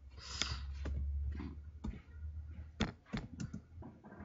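Typing on a computer keyboard: a scattered run of single keystroke clicks at an uneven pace, over a low hum that stops about two seconds in.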